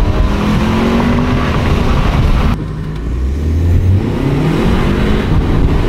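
Stage 2–tuned Audi A3's turbocharged engine under hard acceleration, heard from inside the cabin. The revs climb, drop abruptly at a quick upshift about two and a half seconds in, then climb again.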